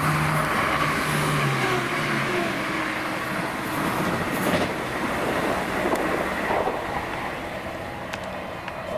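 A train running past on the track: a steady rush of wheels on rail with a few sharp clicks, a pitched tone that falls in the first two seconds, and the sound easing off toward the end.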